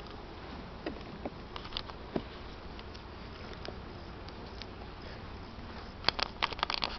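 Honeybees buzzing around a hive, with a few bees passing close and a cluster of clicks near the end.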